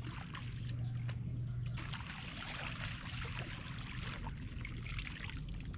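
Water trickling and splashing as duckweed and water weeds are pulled out of a pond, with small clicks of handling and a steady low hum underneath.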